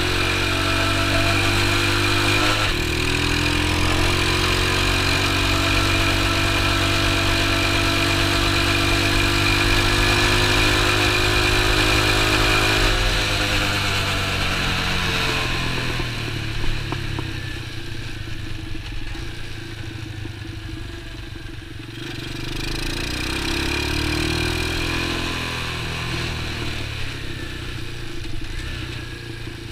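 X19 super pocket bike's small engine pulling under throttle in third gear, its pitch climbing for the first dozen seconds. About halfway through it winds down as the bike is slowed and shifted to neutral to coast, then picks up again briefly in third before easing off near the end.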